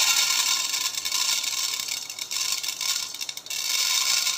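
Dry whole masoor lentils pouring from a plate into a small stainless steel pot: a continuous hissing rattle of grains pattering onto the metal, easing off briefly about three seconds in.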